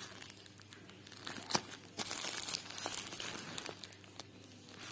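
Plastic packaging crinkling and rustling as it is handled and pulled open, with a sharp click about a second and a half in.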